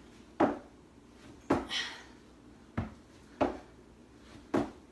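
Sneakers thumping on a bare plywood subfloor as the feet step in from a plank and back out, five sharp thumps at uneven intervals.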